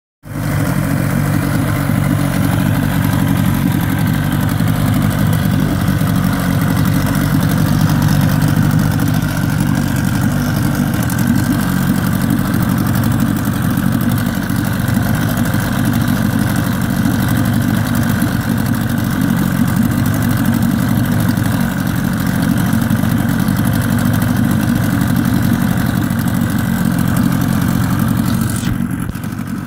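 Yamaha 25hp two-stroke, two-cylinder Enduro outboard running steadily in a test barrel of water.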